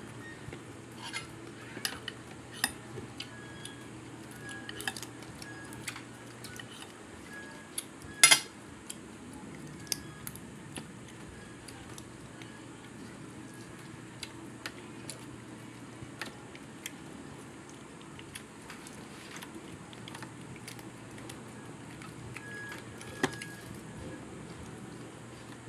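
Cutlery clinking against a plate or bowl during a meal: scattered light clicks, with one louder clink about eight seconds in.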